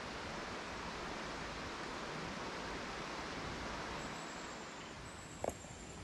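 Steady rush of a fast-flowing rocky creek, an even hiss that eases slightly toward the end, with one brief tick near the end.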